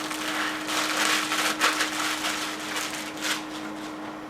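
Plastic packaging rustling and crinkling in irregular bursts as a shipping box is unpacked, with a faint steady electrical hum underneath.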